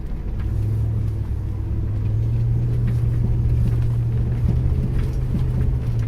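Pickup truck engine droning steadily, heard from inside the cab over low road rumble; the drone comes up louder about half a second in and holds, with a few faint ticks.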